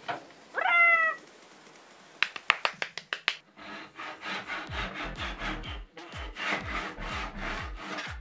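A hand saw held flat against a wooden cabinet panel, cutting old wooden dowel stubs off flush in rapid rasping strokes, about three a second. A short squeal falling in pitch comes about half a second in, and a few sharp taps come just before the sawing starts.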